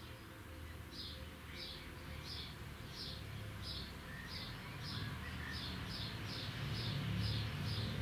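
A bird calling a short, high chirp over and over, about every half second to two-thirds of a second, the calls coming slightly faster in the second half. A low rumble underneath grows louder near the end.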